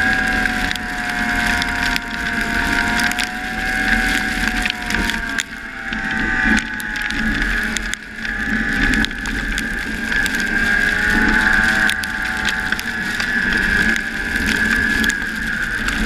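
Arctic Cat ZR500 snowmobile's two-stroke engine running under way, its pitch rising and falling with the throttle and dipping briefly twice midway, over a rapid ratcheting clatter from the drive and track.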